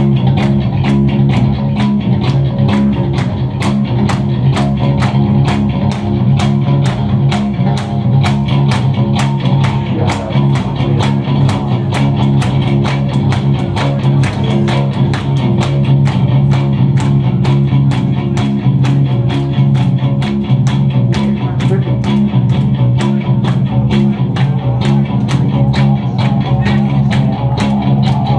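Electric bass guitar playing alone, loud and live: steady low notes with rapid, evenly spaced picked attacks.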